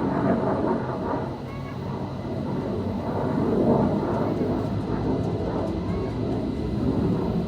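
Jet aircraft flying overhead: a steady, loud rumble that swells to a peak about halfway through.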